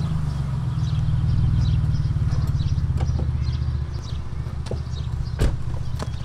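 Silver Jeep Liberty SUV's engine idling, a steady low rumble, with a few light knocks and one sharper knock about five seconds in.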